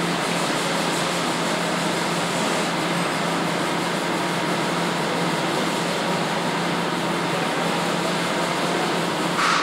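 Paint spray booth's ventilation running: a steady rushing air noise with a low hum. Near the end a brief, louder hiss breaks in.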